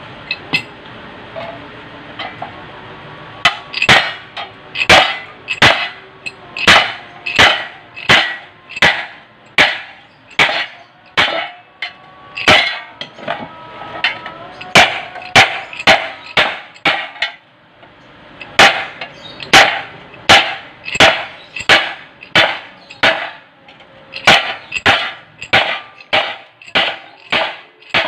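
Hammer striking a chisel held against the edge of a steel sheet plate on a wooden block, bending the edge over. Sharp metallic blows at about three every two seconds begin a few seconds in, with a short pause past the middle.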